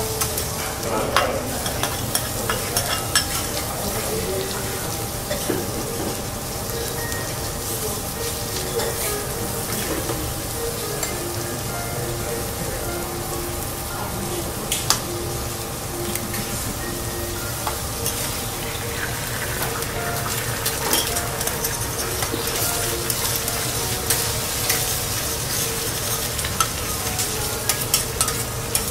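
Diced wagyu beef and eggs sizzling steadily on a steel teppanyaki griddle. The chef's spatula and knife click and scrape against the hot plate many times.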